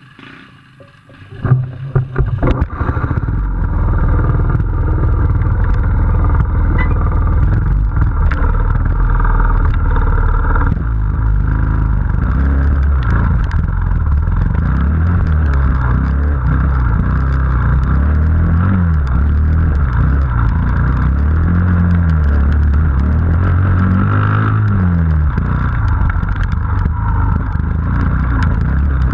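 Trials motorcycle engine starting up about a second and a half in, then running and being revved up and down again and again as the bike rides over rough ground.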